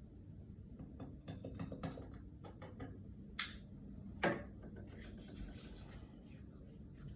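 Faint handling noises in a small room: scattered light ticks and rubs. Two sharper clicks come a little past the middle, about a second apart, and the second is the louder.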